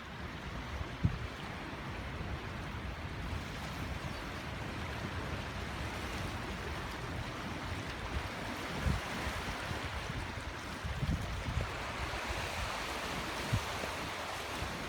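A typhoon-swollen, flooded river rushing steadily, with a few short low thumps from wind on the microphone.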